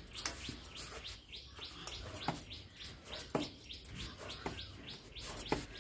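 Small birds chirping: a quick string of short chirps, each falling in pitch, several a second.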